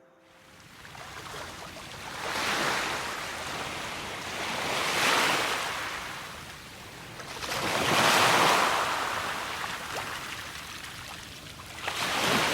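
Ocean surf washing in, a rushing noise that swells and fades four times as waves break and draw back.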